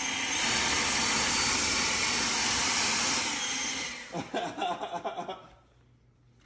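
Battery-powered leaf blower running flat out: a loud, even rush of air with a faint high whine that steps up in level just after the start, then winds down and stops about three to four seconds in. A few short, irregular pitched sounds follow before it goes quiet.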